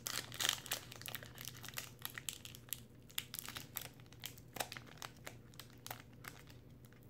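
Shiny foil trading-card pack wrapper crinkling and crackling in the fingers as it is worked open by hand, in short irregular crackles that are busiest near the start.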